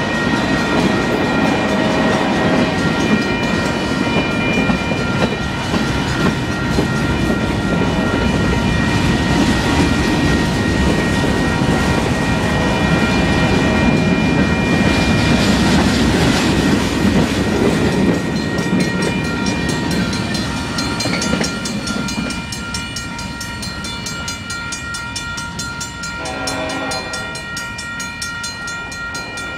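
Union Pacific freight train rolling past, a steady rumble with wheel clatter over the rails, while the grade-crossing bell rings throughout. The rumble eases in the last third as the end of the train passes and moves away, and a brief pitched tone sounds near the end.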